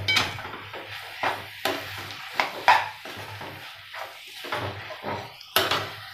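Metal spatula scraping and clinking against a metal kadhai at irregular intervals as raw mutton mince is mixed into the masala, with the loudest scrape near the end.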